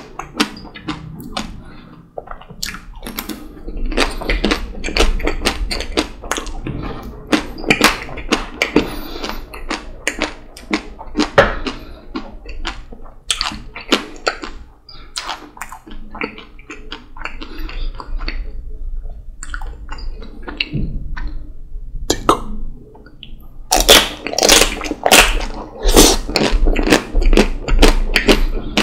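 Close-miked eating of chocolate-coated ice cream: the chocolate shell cracking between the teeth, with wet chewing and lip smacking in irregular clicks and crackles. The crunching gets louder and denser about three quarters of the way through.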